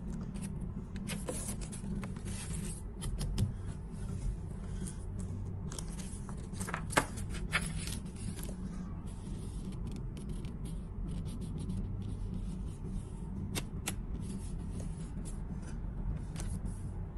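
Paper rustling and scraping as a hand opens and smooths a folded paper leaflet on a wooden counter, with scattered short clicks, the sharpest about seven seconds in. Under it, a steady low hum from the ship's engines.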